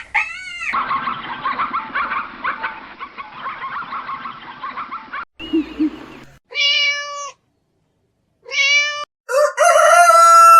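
A string of animal calls: a dense chatter of many small calls lasting several seconds, then three separate drawn-out pitched calls, the last one the loudest.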